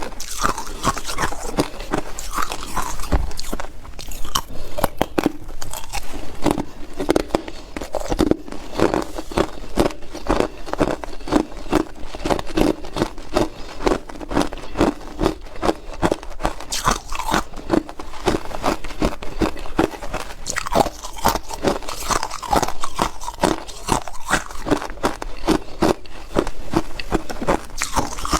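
Close-miked crunching of hard and crushed ice being bitten and chewed, a dense run of sharp, irregular cracks and crunches with no let-up.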